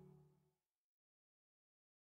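Dance-pop background music at the very end of a fade-out, dying away within the first half second; then dead silence.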